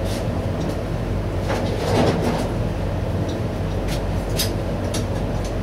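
Steady low hum of running shop machinery, with a few light clicks and knocks from items being handled on the bench.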